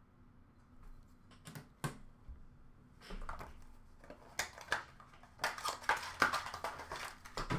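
Hard plastic clicking and crinkling of packaging as trading cards and their cases are handled: a few sharp clicks, then from about three seconds in a busy run of clicks and rustles.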